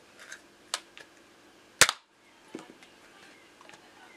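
Nerf Zombie Strike Double Strike spring-powered blaster firing a dart: one sharp pop about two seconds in, with a few lighter plastic clicks of handling before and after it.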